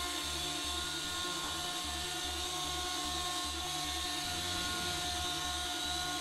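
Tiny micro RC helicopter's electric motors and rotors whining steadily as it hovers.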